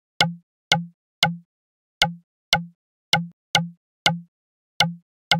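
Synthesized percussion one-shot from the Serum 2 synth, played over and over about twice a second at slightly uneven spacing: each hit is a sharp click over a short low tone that dies away quickly. The sound is being shaped through Serum's distortion and EQ, with modulation on the EQ resonance.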